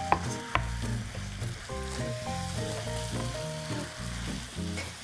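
Pork and vegetables in sauce sizzling in a frying pan as they are stir-fried, under background music with a melody and bass line. A couple of sharp clicks come in the first second.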